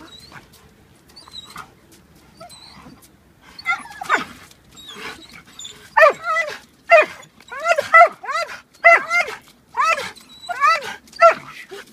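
Belgian Malinois-type dog barking excitedly in play: a run of high, falling, yelp-like barks about one a second, starting about four seconds in after a few faint whines.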